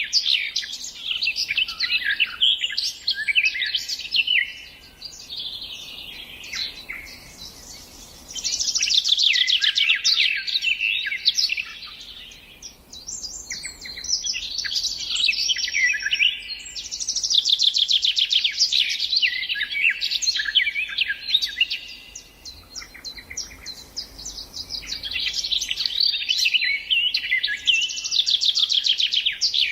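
A songbird singing repeated phrases of fast, high trills and chirps, each phrase a few seconds long with short pauses between.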